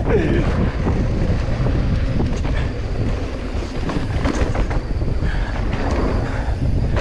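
Wind buffeting the microphone of a mountain bike rider's camera on a fast downhill run, over the rumble of knobby tyres on a dirt trail and the clatter of the bike over bumps.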